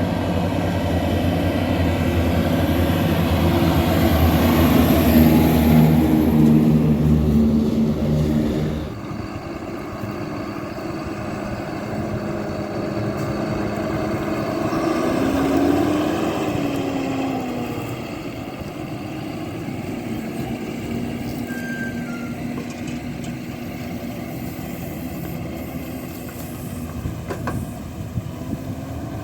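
John Deere 7430 Premium tractor's six-cylinder diesel engine running under load while pulling a slurry tanker with injectors. It is loud for the first nine seconds, then drops abruptly to a quieter, steadier note; halfway through, its pitch rises and then falls.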